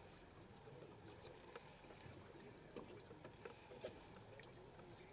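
Near silence: faint water sounds around a drifting boat's hull, with a few soft clicks.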